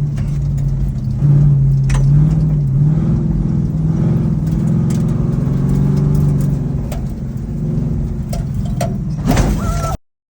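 Truck engine running hard on a dirt track, its pitch wavering up and down with the throttle, with scattered sharp clicks and rattles. A brief loud burst comes about nine seconds in, and the sound cuts out abruptly just before the end.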